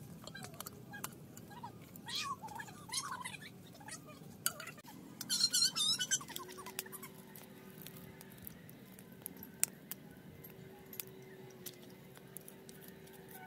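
Animal calls: a few short squeaky calls, then a louder burst of fast high chirping about five and a half seconds in, over scattered light clinks and knocks. A steady low hum sets in about six seconds in.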